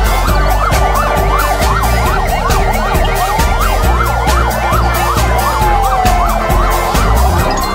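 Several ambulance sirens sounding at once, mostly fast yelping sweeps up and down in pitch, with one slower wail that rises and then falls away around the middle. A low rumble runs beneath them.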